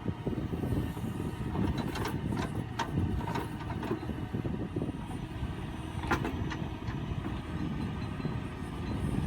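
Tractor diesel engine running steadily under backhoe work, with several sharp knocks, a cluster about two to three seconds in and another about six seconds in.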